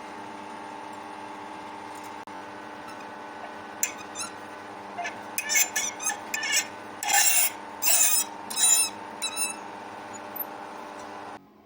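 A steady machine hum with a series of short, irregular scraping or rasping strokes over its middle part, as of metal being worked by hand. The hum cuts off abruptly near the end.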